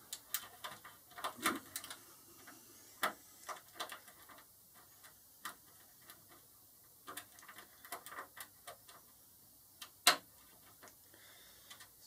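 Small irregular metallic clicks and ticks of a lock pick and tension wrench working the pins inside a pin-tumbler door lock cylinder, with a sharper click about ten seconds in. The pick is reaching for the hard-to-reach rear pin at the back of the cylinder.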